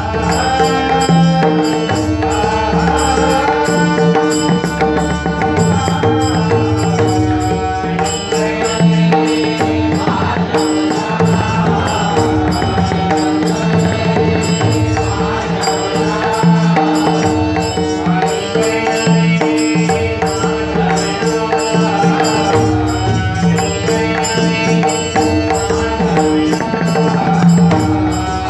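A Marathi abhang, devotional song sung by a male singer, over a sustained drone, with pakhawaj barrel-drum strokes keeping a steady rhythm.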